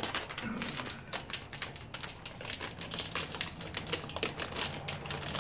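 Kettle-corn snack bag crinkling and crackling as it is handled and pulled open at the top, in a dense, irregular run of crackles.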